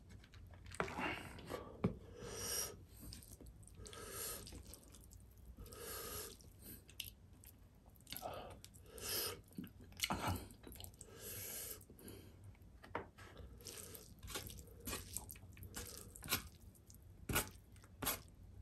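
Close-miked chewing and wet mouth sounds of a person eating beef rendang and rice, in irregular bites and chews, mixed with soft squishing of fingers working rice into the gravy.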